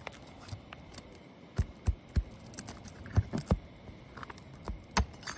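Irregular sharp clicks and knocks of nails being worked out of a tarp fastened to a shingle roof.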